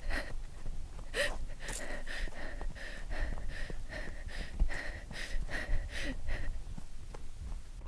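A woman panting hard and gasping while running, about two quick breaths a second, over a low rumble. The breathing stops about a second before the end.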